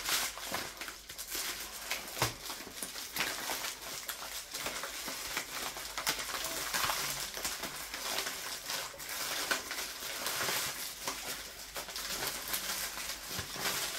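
Courier mailer packaging rustling and crinkling as it is pulled apart and unwrapped by hand, with many small crackles and handling clicks throughout.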